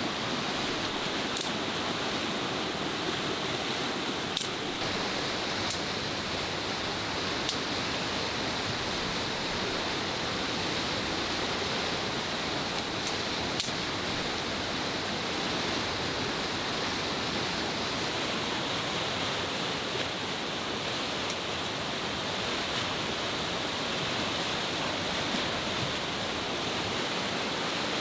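Fast-flowing, swollen river, a steady rush of water, with a few faint ticks in the first half.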